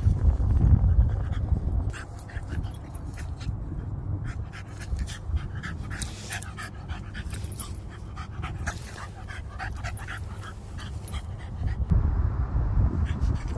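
French bulldog panting as it rolls over and over in grass, with many short rustles and scuffs from about two seconds in. A low rumble is loudest in the first two seconds and again near the end.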